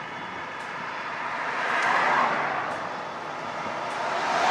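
Road traffic passing close by: tyre and engine noise of a vehicle swells to a peak about two seconds in and fades, then a pickup truck approaches and the noise rises again near the end.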